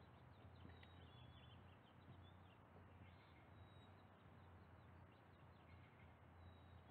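Near silence: a faint steady low hum with scattered faint high-pitched chirps and squeaks, more of them in the first half.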